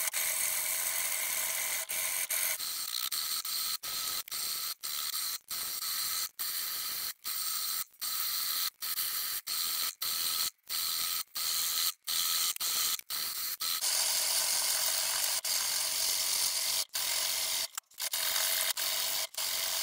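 Steel hand file rasping along the edge of a forge-welded Damascus steel axe blade, reprofiling it. It runs in a steady series of push strokes, about one and a half a second, each cut off by a short gap as the file is lifted back.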